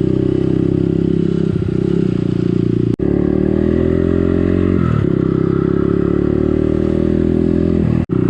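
Motorcycle engine running under way, its pitch climbing slowly and then falling back about five seconds in. The sound cuts out briefly twice, about a third of the way in and near the end.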